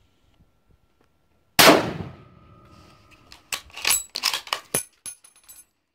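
A single shot from a Ruger M77 Hawkeye II in .264 Winchester Magnum, fired without its muzzle brake, about a second and a half in, with a report that dies away over about half a second. Near the end the bolt is worked to eject the spent brass case: a quick run of sharp metallic clicks and clacks with a light ringing.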